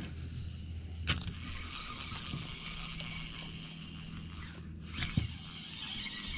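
Spinning reel being cranked during a lure retrieve: a soft steady whirring of the reel, with a sharp click about a second in and another near five seconds, over a steady low hum.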